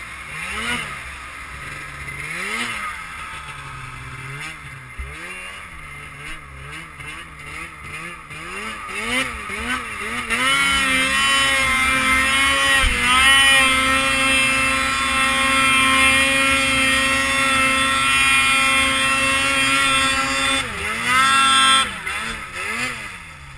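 Snowmobile engine revving up and down with the throttle, then held loud at a steady high pitch for about ten seconds, before dropping off and revving once more near the end.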